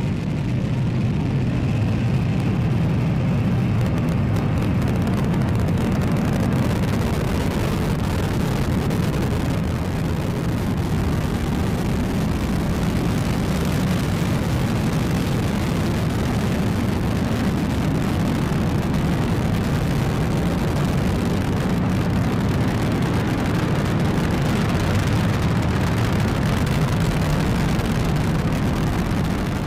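Delta IV Heavy rocket's three RS-68A first-stage engines firing during the climb after liftoff: a loud, steady rumble, heaviest in the low end.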